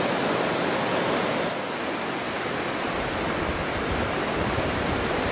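Steady rush of low surf washing onto a sand beach.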